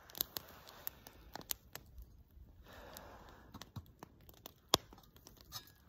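Light handling noises at a small metal camp stove and steel cup: scattered small clicks and taps, a brief rustle about three seconds in, and one sharp metallic click near the end.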